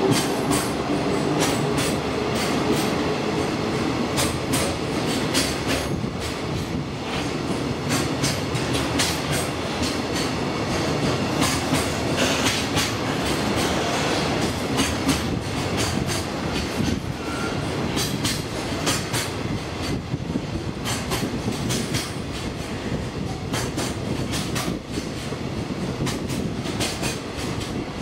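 Freight train of container flat wagons rolling past as it pulls out of the station, with a steady rumble and many irregular sharp clacks of wheels passing over rail joints and points.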